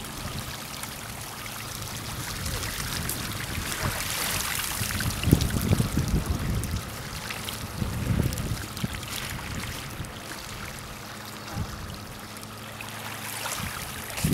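Gentle waves lapping and washing at the water's edge of a beach, with a couple of louder low surges about five and eight seconds in.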